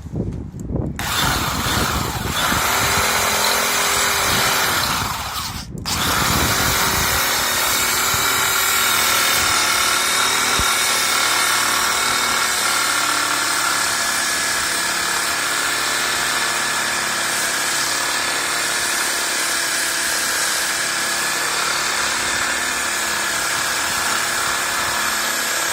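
Electric hand drill running a homemade wood lathe, spinning a wooden stair spindle with a steady motor whine. It cuts out briefly about six seconds in and runs up again.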